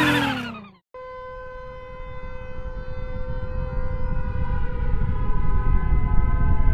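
Nuclear-bomb sound effect build-up: a steady, held pitched tone over a low rumble that swells steadily louder. It starts about a second in, after a falling electronic jingle fades out.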